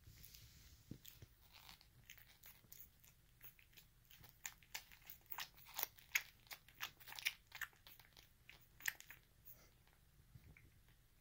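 Poodle puppy suckling at its mother's teat: a quick, irregular run of small smacking clicks, densest in the middle and thinning out near the end.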